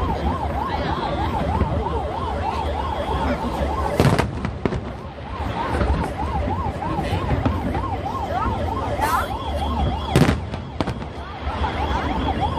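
Emergency vehicle siren in a fast yelp, its pitch sweeping up and down a few times a second and breaking off briefly twice, over the steady noise of a large crowd. A couple of sharp fireworks bangs cut through, one about a third of the way in and one near the end.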